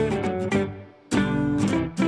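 Background music of a strummed guitar, chords struck in a quick rhythm, with a short gap before a new chord about a second in.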